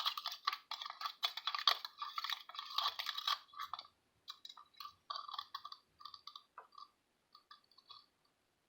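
Slime mixture of glue being stirred in a bowl, giving quick sticky clicks and squelches that come thick and fast, then thin out after about four seconds.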